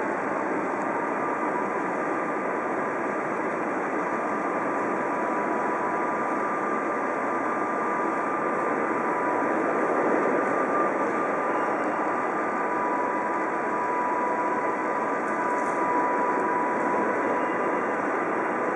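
DR Class 23.10 steam locomotive standing with steam hissing steadily, a continuous even hiss with a faint steady whine in it and no exhaust beats.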